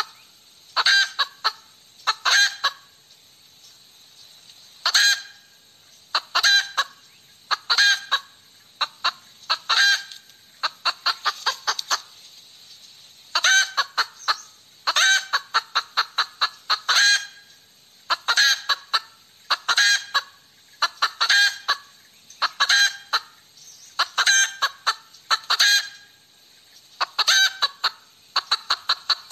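Hen cackling: bout after bout of loud, rapid clucks, each bout a quick run of sharp notes, repeating every second or two.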